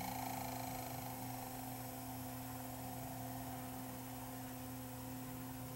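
Panasonic DVD-S35 spinning a disc: a faint motor whir over a steady low hum, easing off after the first second or so. The player won't read any disc, only spinning it up, slowing and stopping, a fault the owner puts down probably to the optical pickup or the spindle motor.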